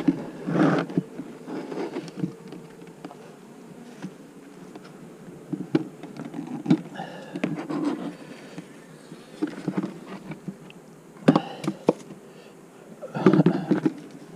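Honeybees buzzing close by, in passes that swell and fade every second or two as they fly around an open hive, with a few sharp knocks about eleven and twelve seconds in.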